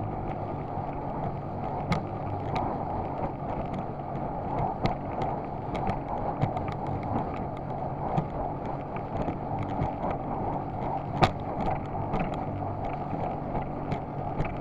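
A small skiff's tiller-steered outboard motor running at speed with a steady engine note, while the hull slaps over choppy water with many short sharp knocks, the loudest about 11 seconds in.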